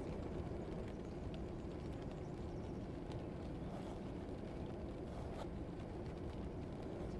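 Ambience track: a steady low rumbling background noise with a few faint clicks and taps scattered through it.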